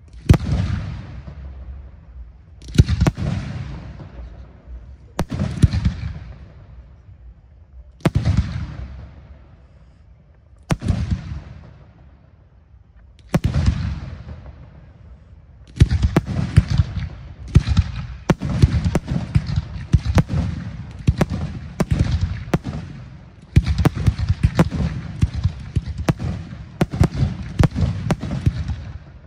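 Aerial firework shells bursting, each boom dying away over a couple of seconds, one every two to three seconds. About halfway through they give way to a fast, unbroken volley of bursts.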